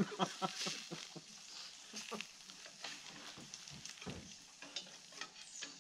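Food sizzling faintly in a pan on a camp stove, with a few scattered clicks and knocks of a utensil.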